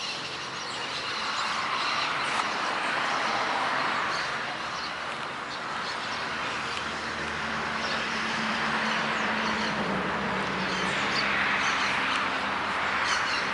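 City traffic passing, a steady noise that swells and fades, with scattered bird chirps over it.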